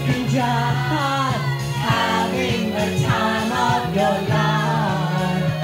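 Several women singing together into a microphone over loud recorded pop music, karaoke-style.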